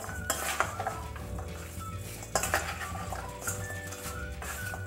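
A spoon stirring and tossing raw sweet potato strips in a stainless steel mixing bowl: repeated scrapes and sharp clinks of the spoon against the metal bowl.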